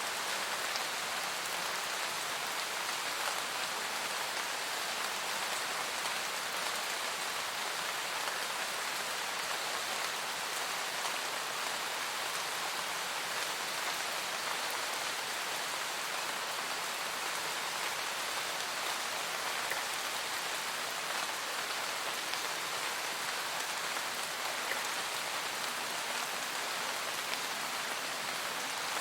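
Steady rain falling on forest foliage: an even patter of many small raindrops.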